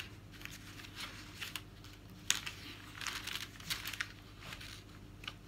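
Paper pages of a magazine rustling as they are handled and turned, in a few short soft rustles.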